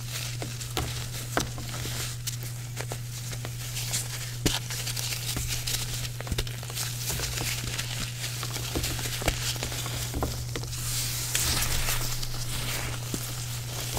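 Water-soaked gym chalk being crushed and crumbled by hand: irregular gritty crunches and soft crackles, thickening into a denser hissing crumble about eleven seconds in. A steady low hum runs underneath.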